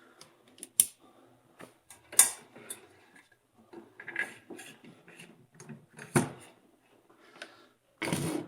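Irregular clicks, taps and clunks of tools, a work light and a brake caliper being handled and set up on a workbench, with a louder handling noise about half a second long near the end.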